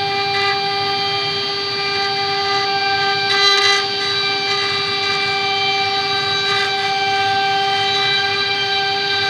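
CNC router spindle running with a steady whine while its engraving bit cuts a relief pattern into a wooden board. The cutting briefly gets louder and noisier about three and a half seconds in.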